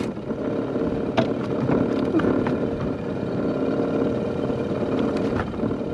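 A small boat motor running steadily, with a few light knocks and clicks against the aluminium hull about one, two and five seconds in.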